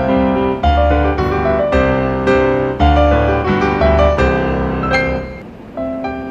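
Background piano music, single notes and chords struck at an unhurried pace, growing quieter near the end.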